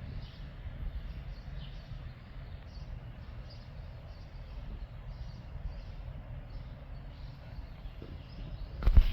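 Outdoor ambience: uneven low rumble of wind on the microphone, with faint bird chirps repeating throughout. Near the end comes a loud bump and rustle.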